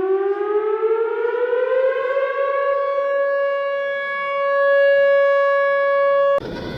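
Civil defense siren winding up, its pitch rising over about two seconds and then holding a steady tone. It cuts off suddenly near the end, and a noisier, rising siren-like sound takes over.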